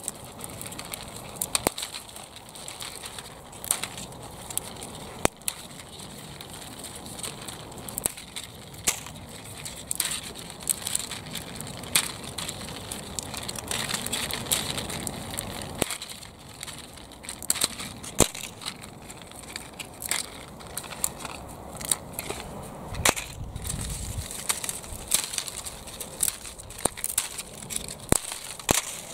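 Dry, papery bean pods and brittle dried stalks crackling and snapping irregularly as the pods are picked by hand from a dried-out bean plant. There is a steady rustle of dry foliage underneath.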